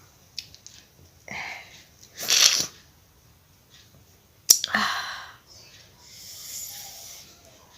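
A woman with a head cold sneezing twice, about two seconds in and again at four and a half seconds, the sneezes set off by tickling her nose with paper. A long breathy sound follows near the end.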